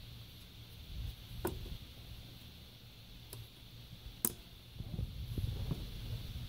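A few sharp clicks and taps from handling a hinged, glass-lidded display case as its lid is closed, the loudest about four seconds in. Low, irregular handling rumble follows near the end.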